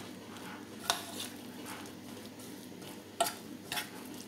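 A metal fork stirring and scraping a thick mix of crushed almonds and honeyed prunes and apricots in a stainless-steel pot, with three sharp clinks of the fork against the pot's side.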